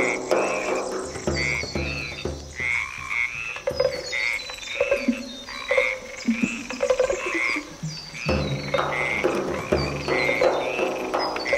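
Frog-like croaking calls repeating about twice a second, part of a live experimental percussion soundscape. A low hum swells near the start and again about eight seconds in.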